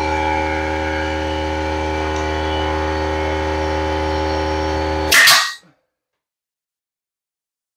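Portable air compressor motor running with a steady hum (a California Air Tools CAT-1P1060S) that stops about five seconds in with a short, loud burst of hiss.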